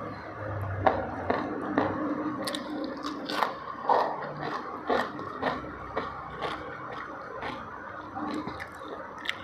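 Close-miked chewing of a person eating a meal by hand, with a run of short, sharp mouth clicks at irregular spacing, roughly two a second.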